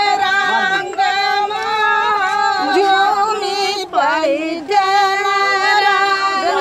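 Female voices singing a song with long held, wavering notes, breaking off briefly about four seconds in.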